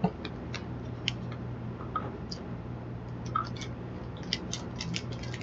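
Mouth chewing a sour chewy candy, with soft irregular wet clicks and smacks that come faster about four seconds in, over a faint steady low hum.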